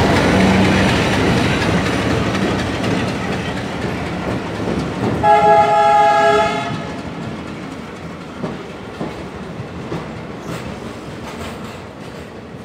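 Passenger train coaches rolling past on arrival, with dense wheel and rail noise and clickety-clack over the rail joints. About five seconds in, a multi-note train horn sounds for about a second and a half. The rolling noise then eases as the train slows, leaving separate wheel clicks.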